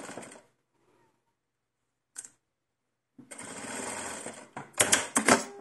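Domestic sewing machine running steadily for about a second, stitching a doll T-shirt sleeve, followed by several sharp, loud clacks near the end.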